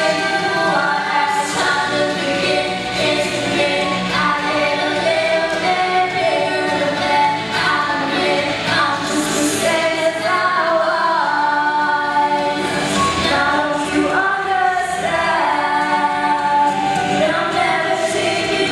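Two female voices singing a duet into handheld microphones, the voices amplified and continuous.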